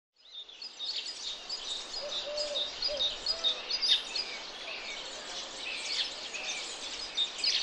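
Several birds chirping and singing over a soft outdoor hiss, fading in from silence just after the start: many short high chirps with some lower, curving calls among them.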